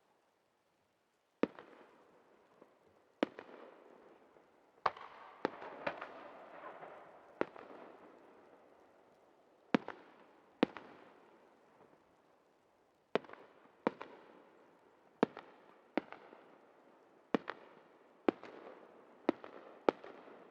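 Aerial firework shells bursting in an irregular volley of about sixteen sharp bangs, each trailing off in a rolling echo, with a denser spell of crackle about five seconds in.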